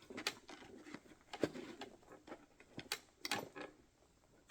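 Hand tools clicking and knocking as they are handled and fitted into the pockets of a tool bag: a handful of irregular sharp clicks with soft handling noise between them.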